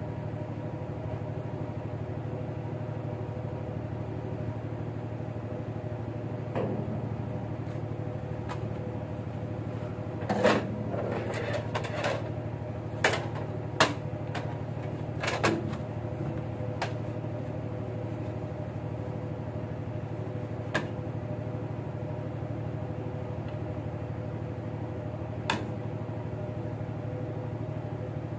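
Steady low drone of a fishing boat's engine. A run of sharp knocks and clatter comes over several seconds around the middle, then two more single knocks later.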